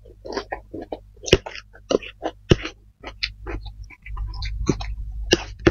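Close-miked eating of fried flat rice noodles: wet mouth smacks and sharp clicks of chewing, repeated irregularly, with a low rumble for about a second and a half near the end.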